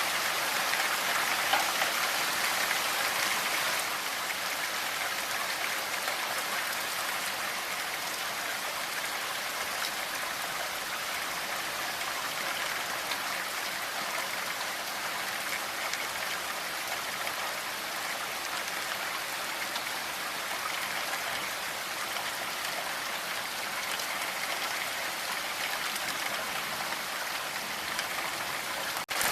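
Steady rain falling, an even hiss of drops with no distinct strikes. The sound cuts out for an instant near the end, then resumes.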